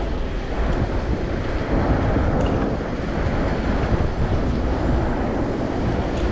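Steady wind noise on the microphone and road rumble from a bicycle riding along an asphalt street.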